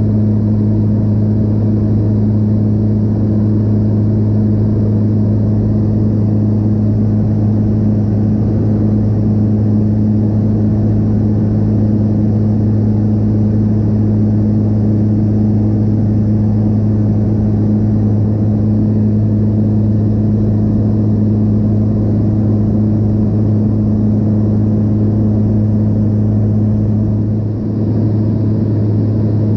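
A de Havilland Otter floatplane's engine and propeller droning steadily in cruising flight, heard inside the cabin, with a brief dip in level near the end.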